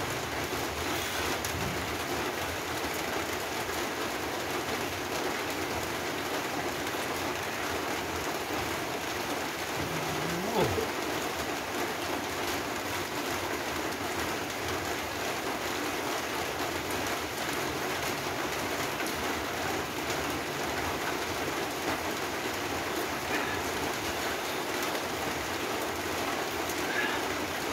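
Steady rain falling, a constant even hiss. A short rising sound stands out about ten seconds in.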